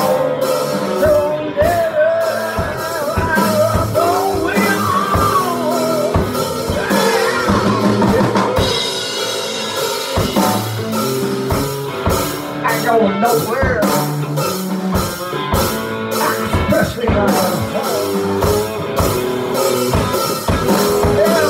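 Live rock band playing: a drum kit keeping a steady beat under electric guitar, with singing.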